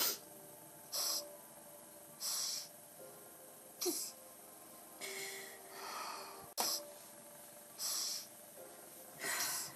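A woman crying: repeated sniffs and sharp intakes of breath, one roughly every second or so, with one longer breath around the middle and a single sharp click shortly after it.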